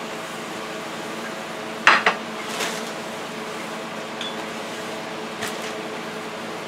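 Kitchenware being handled on a counter: two sharp clatters close together about two seconds in, then a few lighter clinks, over a steady background hum.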